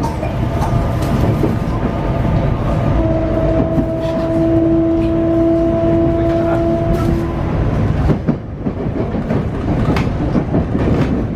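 Running sound inside a JR West 225 series 100 subseries electric train with a Hitachi IGBT VVVF inverter. There is steady running noise with clicks over rail joints, and an inverter tone that holds steady for several seconds midway.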